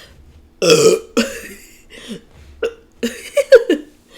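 A woman burping repeatedly, a string of short loud burps: the biggest about half a second in and several more near the end. The burps are the gas from gulping a lot of cold carbonated Sprite, and her stomach hurts from it.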